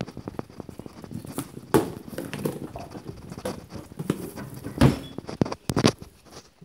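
Kitchen handling noises: irregular clicks, knocks and rustles, with a few louder thumps, as scraps and a plastic bag are handled at a chopping board.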